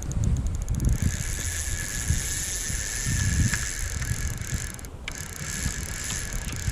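Fly reel's click-and-pawl drag ratcheting as line is wound in, a fast steady buzz of clicks, with jacket fabric rubbing over the microphone.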